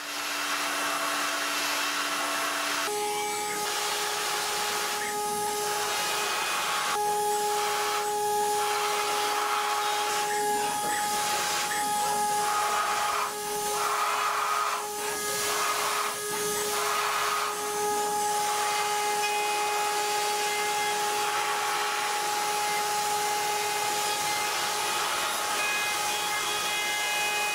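Datron high-speed CNC milling machine cutting aluminium: a steady high whine from the spindle over a hiss of cutting that swells and fades again and again as the end mill works the part. The whine steps up in pitch about three seconds in.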